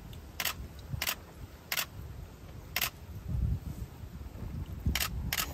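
A utensil tapping against a bowl while someone eats ochazuke: about six light, sharp clicks at irregular intervals, two of them close together near the end.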